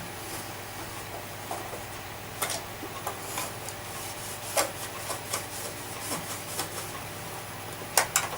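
Rubbing and scattered light clicks and knocks as vacuum cleaner parts are handled, with a sharper double click near the end.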